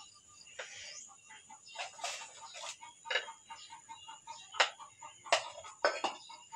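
Metal spoon scraping and clinking against a cooking pot and a plate as rice is scooped out: a series of short clinks and knocks with soft scraping between them.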